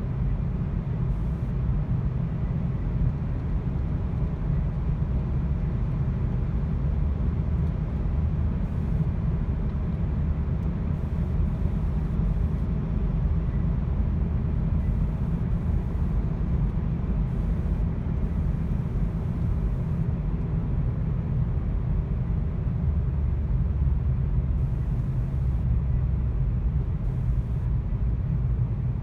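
Volkswagen car driving at steady speed: a constant low engine and road rumble, from an engine that has a misfire.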